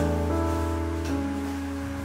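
Soft instrumental background music: a chord held and slowly fading, with the notes shifting about a second in.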